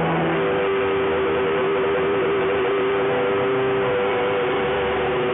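Music with long held notes, received on shortwave AM radio and buried in a heavy, steady hiss of static and noise.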